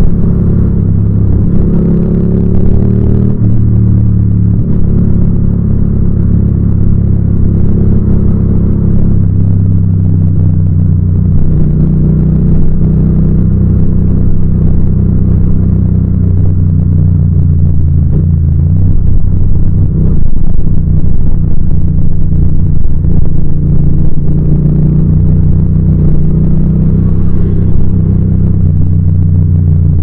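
Yamaha MT-07's parallel-twin engine running under way on a ride, loud and steady, its pitch stepping up and down a few times as the revs change.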